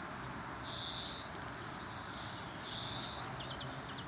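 An insect chirping twice, two short buzzy chirps about two seconds apart, over a steady background hiss, with a few faint clicks.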